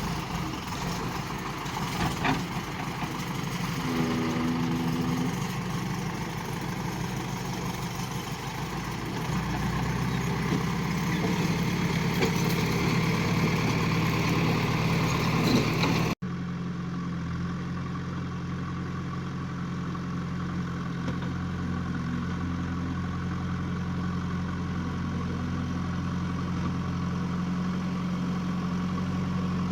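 JCB 3DX backhoe loader's diesel engine running and working, its sound building through the first half, with a few knocks early on. An abrupt cut comes about sixteen seconds in, after which the engine runs steadily.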